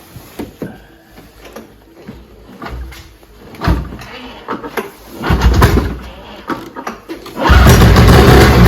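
A Polaris 700XC snowmobile's two-stroke engine being cranked over after years of sitting, in several separate tries that get longer and louder, the last a sustained burst of about two seconds near the end.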